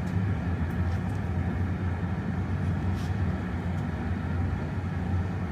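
Steady low rumble of a gas-fired glory hole, the reheating furnace for glassblowing, running at full heat, with one faint tick about three seconds in.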